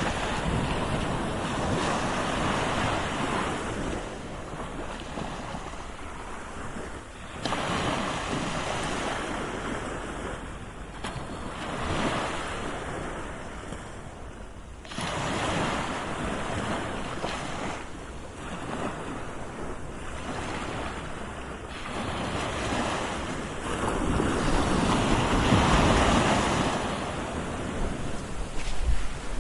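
Medium sea waves surging and washing back in repeated swells every few seconds, the biggest swell building near the end.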